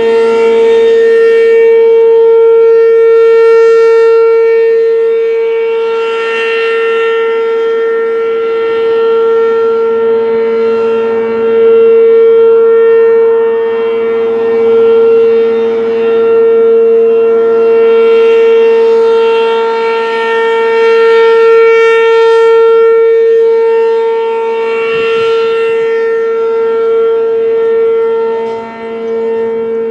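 American Signal RM-127 rotating mechanical outdoor warning siren sounding a steady wail at full pitch during a siren test. The loudness swells and eases as the horn turns.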